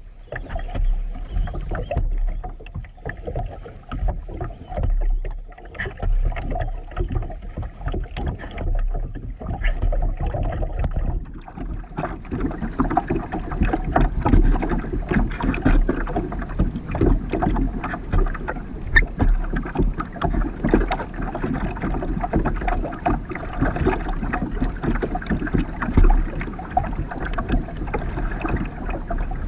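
Creek water splashing and lapping against a plastic kayak's hull as it moves downstream, a choppy run of small splashes. About twelve seconds in the water noise grows fuller and more constant as the kayak runs into rippled, choppier water.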